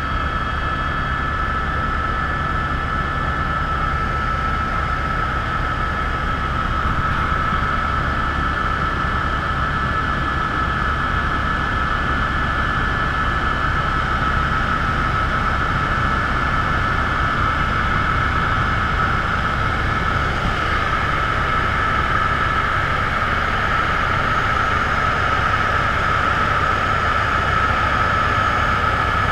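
Helicopter cabin noise in flight: a steady rapid low beat from the rotor blades under a constant high turbine whine and broad engine noise, the whine a little stronger in the second half.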